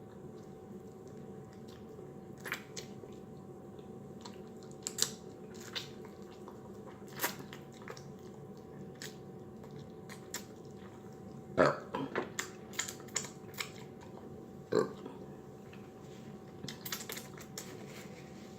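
Close-miked mouth sounds of eating: scattered wet clicks and smacks of chewing. They come in a quick cluster about twelve seconds in and again near the end, over a faint steady hum.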